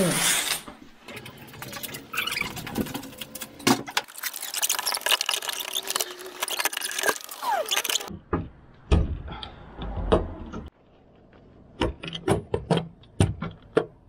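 Sharp clicks and knocks of hands working the latches and fittings of a metal heater box on a car roof rack. Before them is a stretch of steady noise with scattered clicks, which cuts off suddenly about eight seconds in.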